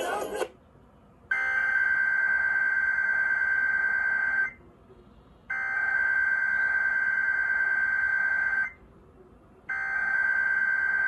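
Emergency Alert System SAME header: three identical bursts of buzzing digital data tone, each about three seconds long, with about a second's pause between them. This opens a Required Weekly Test. The station's music cuts off just before it.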